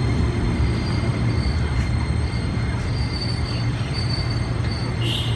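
A 205-series electric commuter train rolling slowly into the platform as it slows to stop, with a steady low rumble and faint high-pitched wheel squeals that come and go. A brief louder squeal comes near the end.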